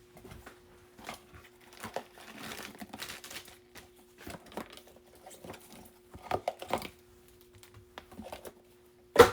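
Crinkling and rustling of plastic card sleeves and a rigid plastic top loader being handled as a trading card is slipped in, with scattered light clicks and one sharper click near the end.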